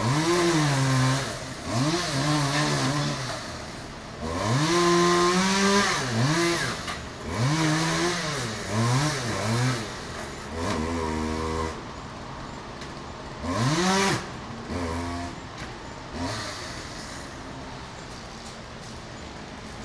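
Two-stroke chainsaw engine revved in a string of short bursts, each rising in pitch, holding briefly and dropping back, then settling to a lower steady run for the last few seconds.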